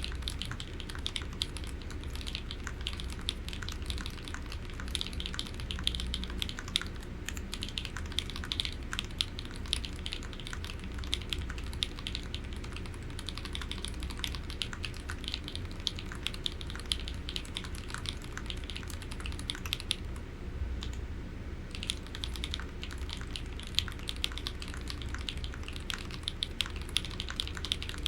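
Typing on an HHKB Polaris custom mechanical keyboard with lubed Novelkeys Cream linear switches, a brass plate with plate and case foam, and EPBT PBT keycaps. Rapid, continuous keystrokes, with a brief pause about twenty seconds in.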